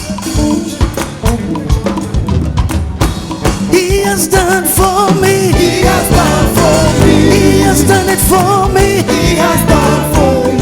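Live African gospel praise music: a band with drum kit and percussion playing a driving beat, with voices coming in singing after a few seconds.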